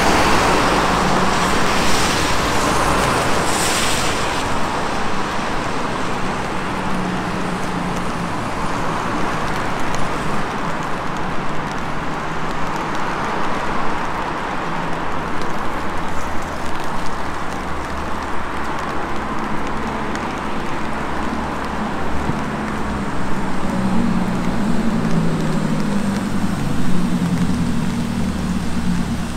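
Road traffic on a wet multi-lane road: cars going by with tyres hissing on the wet asphalt over a steady traffic rumble. It is loudest and hissiest in the first few seconds as a car passes close.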